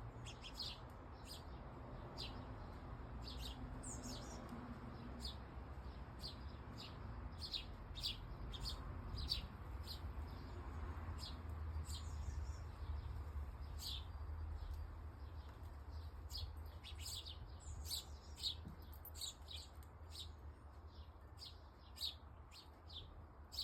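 Small birds chirping, many short high chirps in quick succession throughout, over a steady low rumble.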